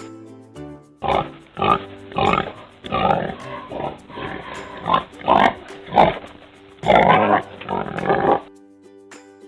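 A series of short, rough animal calls, a dozen or so in quick irregular succession, over background music with long held notes. Only the music plays at the start and in the last second.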